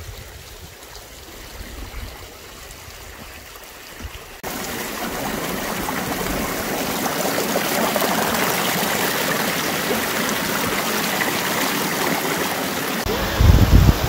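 Mountain stream rushing and splashing over mossy rocks, heard faintly at first and then suddenly much louder and closer about four seconds in. A few low rumbling bumps come near the end.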